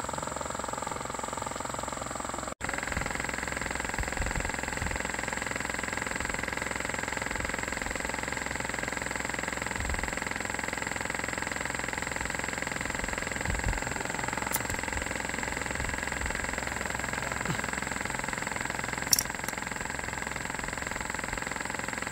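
A machine running with a steady hum and a constant high whine. The sound cuts out for an instant about two and a half seconds in, and a couple of short clicks come in the second half.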